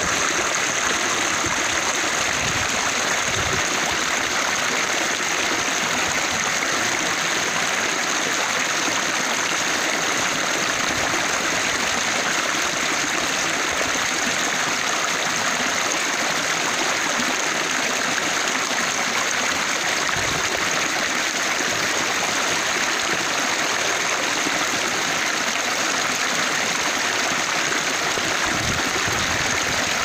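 Shallow stream water flowing steadily over rocks.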